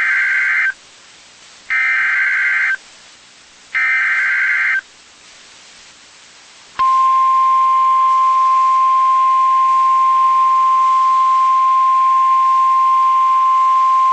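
Emergency Alert System broadcast: three one-second bursts of screechy digital header data (the SAME code), about a second apart, then about three seconds in after the last burst a long, steady single-pitch attention tone that begins sharply and holds, announcing a severe thunderstorm warning.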